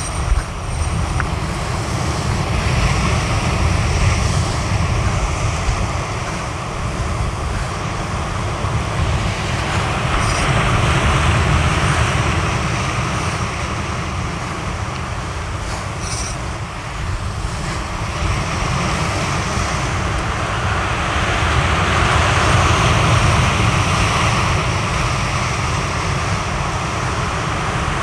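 Sea surf breaking on a rocky shore: a continuous rushing roar that swells and eases as each set of waves comes in.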